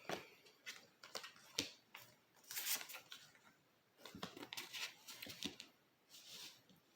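Tarot cards being handled: soft rustling and scattered light clicks coming in short spells, loudest about two and a half seconds in and again around four to five seconds in.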